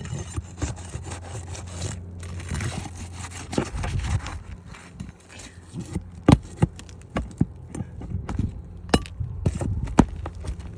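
Irregular scraping and rubbing on a shingle roof, broken by many sharp taps and clicks, a few of them loud, over a low steady hum.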